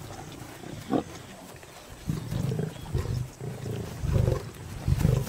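Lions growling over a buffalo kill: a string of low, rumbling growls, heavier in the second half, with a short sharper sound about a second in.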